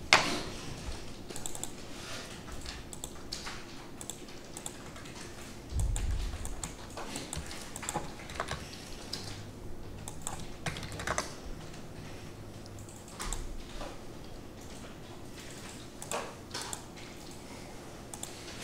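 Typing on a computer keyboard, with scattered irregular keystrokes and pauses between them, mixed with mouse-button clicks. A sharp click comes right at the start and a low dull thump about six seconds in.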